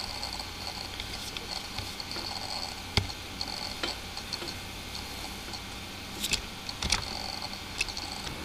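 A few scattered computer mouse clicks, sharp and isolated, over a faint steady hiss of room and microphone noise.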